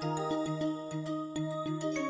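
Instrumental intro music: a steady pattern of held, repeated notes, changing about twice a second.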